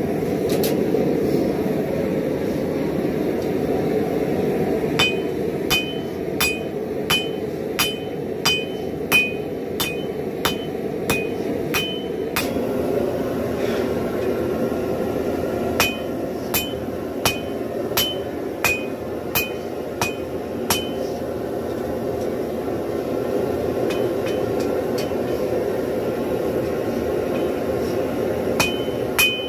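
Hand hammer striking glowing spring steel on an anvil while forging a straight razor blank, about one and a half blows a second, each blow with a bright ring from the anvil. Two runs of blows in the first two thirds, a pause, and a new run starting near the end, over a steady rushing noise.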